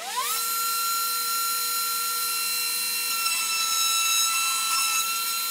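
Table-mounted wood router starting up: its motor whine climbs quickly in pitch to full speed, then runs at a steady high whine while a wooden slat is fed across the bit to cut a 90-degree notch.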